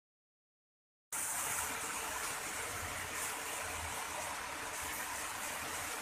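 Heavy rain falling steadily, a loud even hiss that starts abruptly about a second in.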